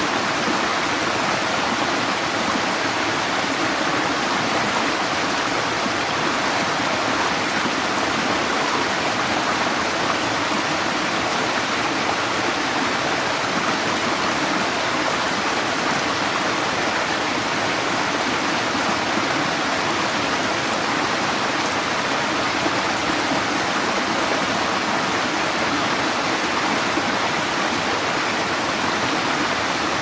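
Small waterfall in a forest creek spilling over rocks: a steady, unbroken rush and splash of water.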